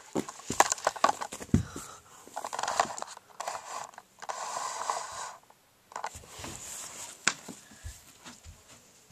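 Camera handling noise: a flurry of knocks and clicks as the camera is moved and set down on the floor, followed by patches of rustling and a few more knocks as someone moves about close to it.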